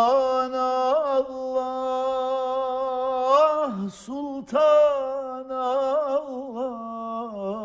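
A man singing a Turkish ilahi (Islamic hymn) without accompaniment, drawing out a long vowel. He holds one note for about three and a half seconds, breaks off for a short breath, then sings a second long line with quick ornamental turns in pitch.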